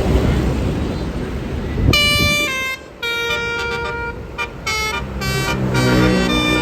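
A bus's Basuri 'telolet' multi-tone musical horn playing a quick melody of toots, starting about two seconds in after a stretch of engine and street noise; the notes change pitch every fraction of a second, with a lower-pitched run near the end.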